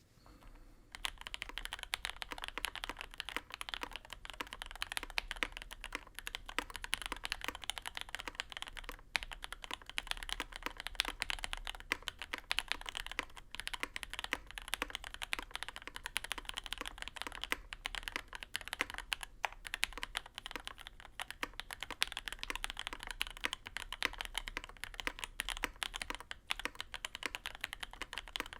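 Continuous fast typing on a custom mechanical keyboard: an Endless-80 top-mount tenkeyless with an aluminium plate, lubed and filmed JWK Lilac linear switches and GMK Laser keycaps, fitted with plate foam and a tape mod but no PCB foam. The tape mod gives the keystrokes a deeper, poppy sound; the typing starts about a second in.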